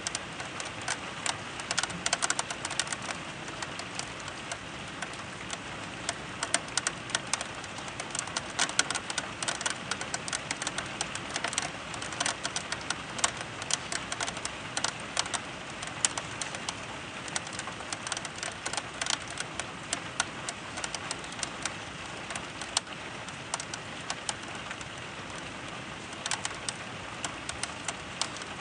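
Thunderstorm rain: a steady hiss with many sharp, irregular ticks of drops tapping close by.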